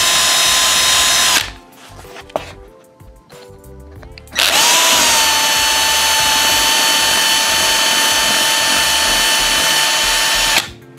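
Cordless drill running at speed with a steady high whine as its bit bores through the fabric of a baseball cap. It stops about a second and a half in, spins up again about four seconds in with a short rise in pitch, then runs steadily until it cuts off near the end.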